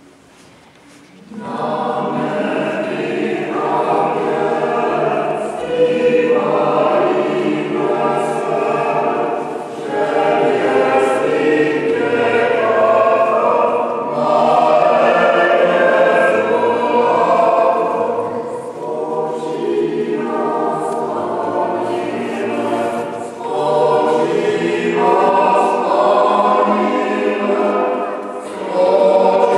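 A choir singing, starting together about a second in and going on in phrases with short pauses between them.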